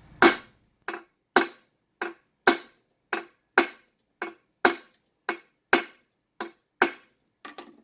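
About fifteen hammer blows, roughly two a second, driving a press-fit nut onto a printing-press tail clamp bolt.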